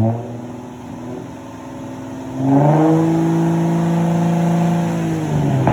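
Straight-piped Infiniti G35 coupe V6 being revved. A quick blip at the start, then the revs climb and are held high for about three seconds before dropping back, with another short blip at the end. The owner says the car has an exhaust leak.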